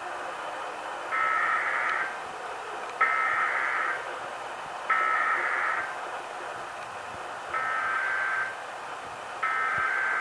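Emergency Alert System SAME header: harsh buzzing bursts of digital data tone, each about a second long, repeating about every two seconds, five times in all, over a steady broadcast hiss. These are the coded bursts that open an EAS test.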